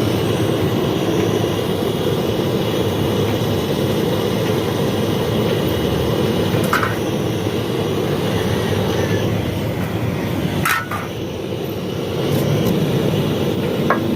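Steady rushing, rumbling noise from a machine or workshop, with two sharp clicks, about seven and eleven seconds in.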